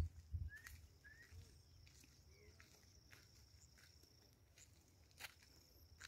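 Near silence: faint open-air ambience with a few soft thuds at the start, two short faint rising chirps within the first second or so, a faint steady high whine, and a single sharp click a little after five seconds in.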